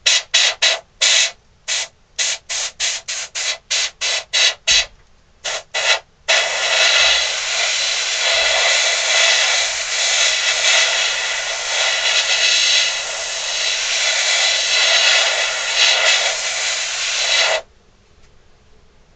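Gravity-feed airbrush spraying paint: a quick run of short hissing spurts for about six seconds, then one steady hiss for about eleven seconds that cuts off suddenly.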